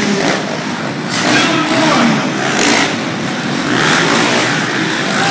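Dirt bike engines revving and accelerating around the track over a steady, noisy background, their pitch rising and falling.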